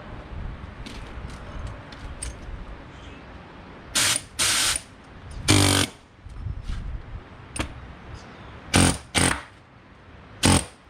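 Pneumatic air hammer with a chisel bit fired in short bursts, about six in all, cutting the steel bead wires of a tractor tire.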